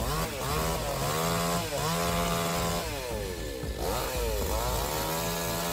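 Chainsaw engine revving, its pitch rising and dropping several times.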